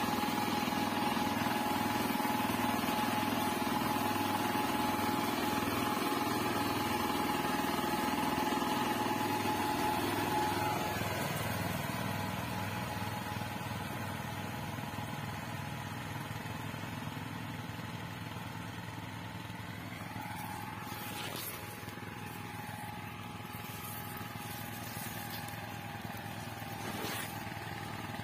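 Small engine of a walk-behind power weeder running steadily while working a sugarcane furrow. It grows fainter about ten seconds in as the machine moves off down the row, with brief shifts in engine pitch.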